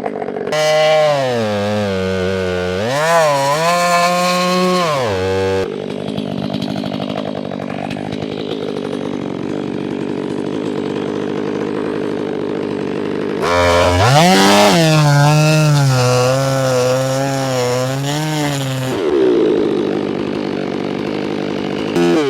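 Stihl 500i fuel-injected two-stroke chainsaw cutting into a big log: it opens up to full throttle twice, its pitch wavering under load, and runs lower and steadier between the two spells. Near the end the revs drop away.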